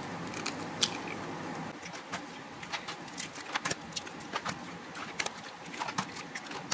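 Eggs being cracked one after another into a glass baking dish: sharp, irregular clicks and cracks of eggshell, about two a second.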